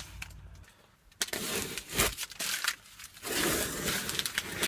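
Blue painter's tape being peeled off a plywood panel and crumpled in the hand: several spells of crackling and rustling with short pauses between.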